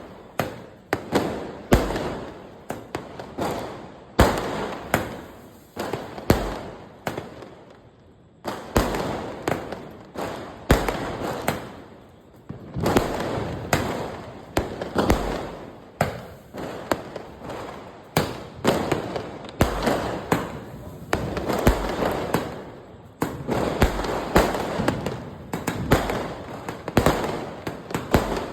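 A 60-shot multi-colour firework cake firing shot after shot: sharp bangs about one or two a second, each followed by a crackling tail.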